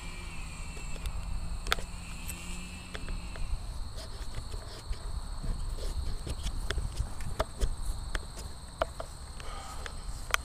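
Irregular soft knocks and footfalls of someone walking through grass while carrying the camera, over a steady high chirring of crickets or other insects. A faint low hum fades out after about three seconds.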